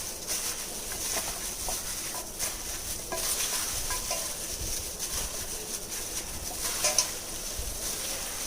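Hands squishing and mixing raw chicken pieces in a wet marinade of lemon juice, spice powders and ginger-chilli paste: irregular soft squelching and rubbing.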